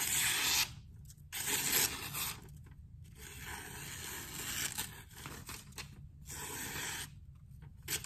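Freshly sharpened Cold Steel Air Lite knife, an AUS-10 blade, slicing through strips of receipt paper in several long strokes with short pauses between: a papery scraping cut, a sign the edge is sharp.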